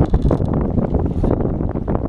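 Strong wind buffeting the microphone in loud, irregular gusts, heaviest in the low rumble.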